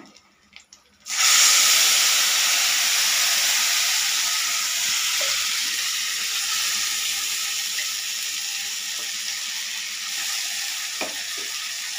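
Wet ground coriander paste hitting hot oil in a kadai: a loud sizzle that starts suddenly about a second in and slowly dies down, with a couple of light knocks near the end.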